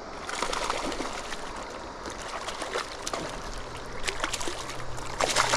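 Water splashing in short bursts over a steady stream flow as a hooked rainbow trout thrashes at the surface while being brought in, the loudest splash near the end.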